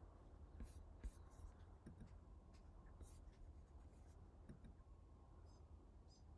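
Near silence: faint background hum with a few soft, scattered ticks and rustles.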